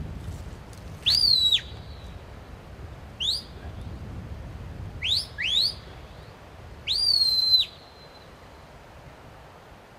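Shepherd's whistle commands to a working sheepdog: a long whistle that rises, holds and drops, a short rising note, two quick rising notes, then another long rising, held and falling whistle near the end.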